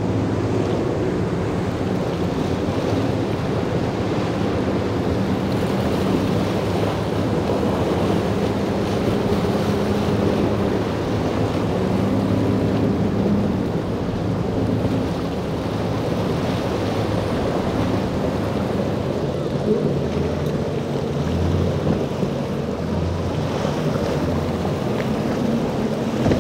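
Outboard motors running at speed as boats cross choppy inlet water, with waves and spray splashing and wind buffeting the microphone. The engine tone shifts about halfway through as a different boat passes.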